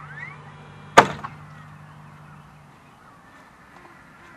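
One sharp, loud knock about a second in, with a lighter knock just after it, over a faint steady low hum that stops partway through.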